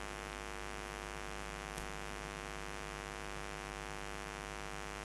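Steady electrical mains hum and buzz with many overtones, unchanging throughout; a faint click about two seconds in.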